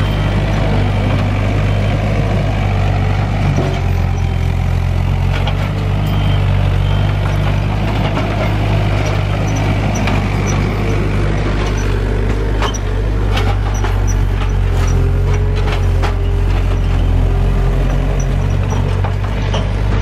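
Gehl CTL60 compact track loader's diesel engine running steadily as the machine drives, with a string of sharp clicks and knocks in the second half.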